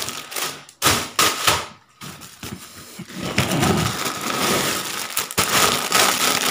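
Plastic packaging crinkling and rustling as it is handled, in irregular spells with a few brief pauses.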